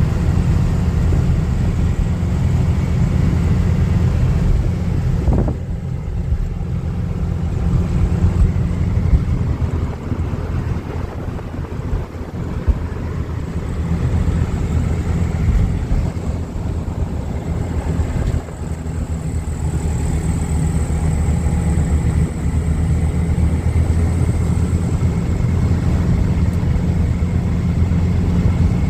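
Engine of a classic 1300 car running steadily with a low, continuous rumble; its level dips briefly about five seconds in and again past the middle.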